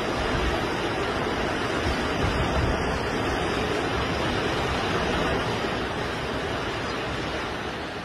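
Wind rushing over the microphone together with surf breaking on the beach, a steady dense rush of noise that grows a little quieter near the end.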